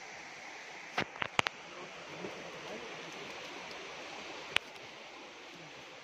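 Steady rush of flowing stream water, with a quick cluster of sharp knocks about a second in and one more later.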